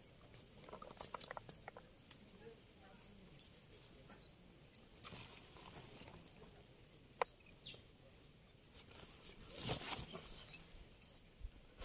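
Faint outdoor ambience: a steady high thin whine with scattered small rustles and clicks, a sharp click a little after seven seconds and a louder rustle near ten seconds.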